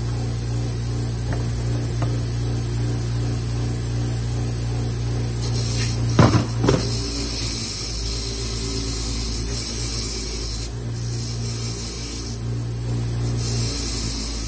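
Bench-motor wire wheel spinning with a steady hum while a water-pump bolt is held against it, the wire bristles scrubbing off grime and rust with a hiss. A couple of sharp clatters come about six seconds in.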